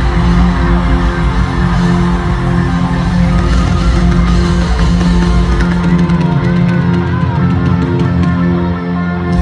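Live pop-rock band music amplified through a concert PA, with guitar and drums. The deep bass drops away about six seconds in.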